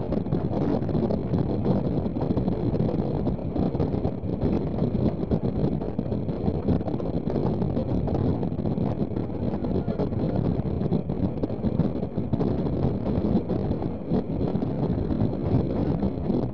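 Passenger coaches of a moving train running along the track: a steady rumble of wheels on rails, with wind buffeting the microphone at the open window.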